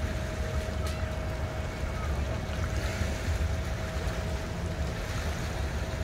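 Boat engines running around a busy boat ramp: a steady low rumble with a faint steady whine over it, and no sudden events.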